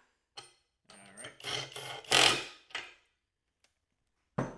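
Skil 12V cordless impact driver hammering on a bolt in a burst of about two seconds, starting about a second in. A single sharp knock near the end.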